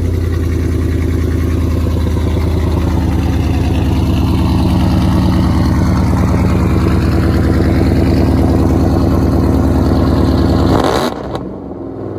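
Ford Mustang GT V8 with newly fitted long-tube headers idling loudly and steadily just after start-up; about eleven seconds in its pitch and level drop as the idle settles lower.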